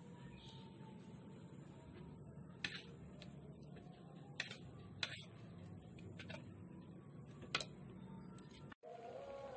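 Wood-fired hearth with a wok cooking on it: a faint steady low rumble with about five sharp crackling pops scattered through, from the burning firewood or the fish spitting in the pan. The sound cuts out suddenly near the end.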